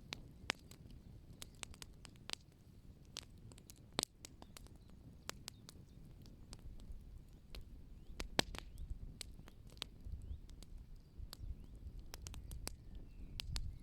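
Wood fire burning in the open and crackling: irregular sharp pops and snaps, several a second, over a low rumble. The loudest snaps come about four seconds in and just past eight seconds.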